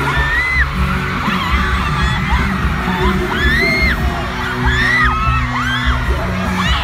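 Pop concert music played loud through an arena sound system, with a pulsing heavy bass. Over it, fans close to the recording phone scream in many short high-pitched cries.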